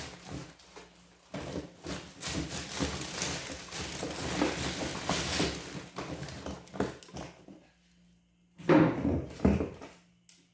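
Plastic-wrapped frozen food crinkling and rustling as packages are shifted about inside a chest freezer, with small knocks among the wire baskets. Near the end come two sharp, loud knocks about a second apart.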